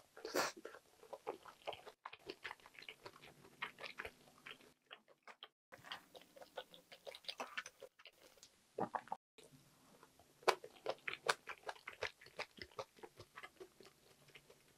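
Close-miked chewing and mouth sounds of a person eating, a steady run of quick wet clicks several times a second, broken by a few short silent gaps.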